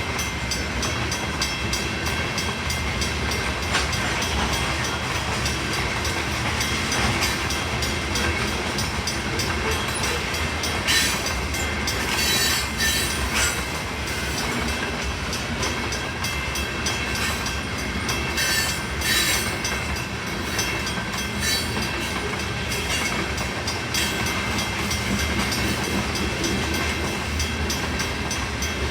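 Freight train cars rolling steadily past over the crossing, wheels clattering on the rail joints.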